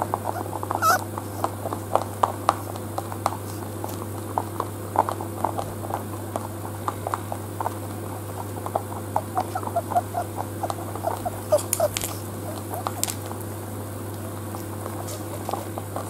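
Rabbit eating from a ceramic bowl: many quick, irregular small crunches and clicks, several a second, with a few sharper clicks about three-quarters of the way through. A steady low hum runs underneath.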